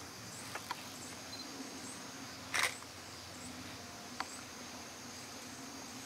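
Camera handling noise: a few small clicks and one short scrape about two and a half seconds in, over a quiet outdoor background with a faint steady high hiss.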